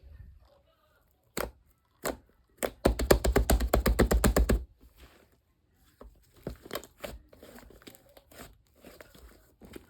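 Wrapping being torn and crinkled by hand, with scattered sharp clicks. A loud burst of fast, evenly spaced crackling lasts about a second and a half near the middle, followed by softer rustling and crinkling.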